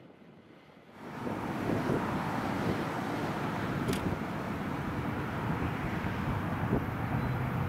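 Hi-rail pickup truck running along the railroad track toward the microphone: a steady rumble of engine and wheels that starts suddenly about a second in. There is one brief click midway.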